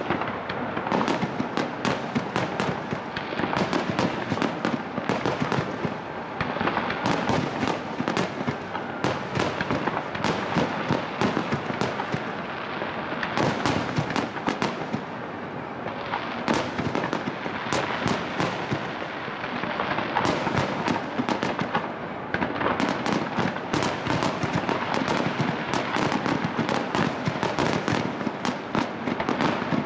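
Aerial firework shells bursting in a dense finale barrage: rapid, overlapping bangs and reports, many a second, with no break.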